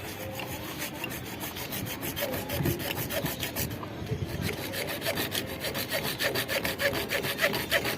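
A hand tool rasping back and forth against a hard surface in quick, even strokes, several a second, which settle into a steady fast rhythm about two seconds in.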